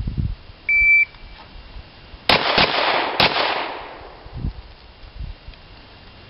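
Shot timer's start beep, one steady high tone about a third of a second long, followed about a second later by a quick string of pistol shots, three or four cracks within a second, with echo trailing off after them.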